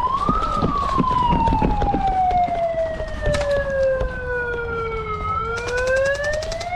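A siren wails slowly: it rises sharply at the start, falls gradually over about five seconds, then rises again. This is the game-start signal at an airsoft field, sounding just after a countdown. Scattered clicks and knocks are heard under it.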